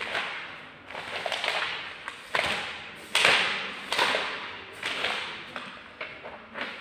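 Pages of a paper textbook being flipped one after another: a run of about nine quick papery swishes, each starting sharply and fading out.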